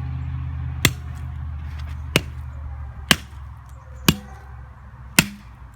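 Five sharp knocks about a second apart: a bat being swung down repeatedly onto a broken phone. A steady low hum sits underneath.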